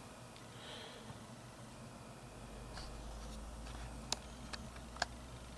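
Quiet room tone: faint hiss with a few faint clicks, the clearest about four and five seconds in.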